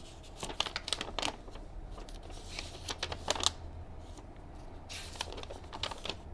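Hands handling the plastic and metal parts of a benchtop drill press: a quick cluster of sharp clicks and knocks, then rustling and scraping, then more clicks near the end.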